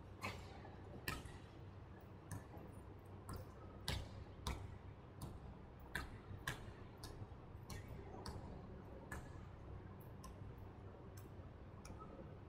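Basketball dribbled on a hardwood gym floor, an irregular series of sharp bounces about one to two a second that echo in the large hall.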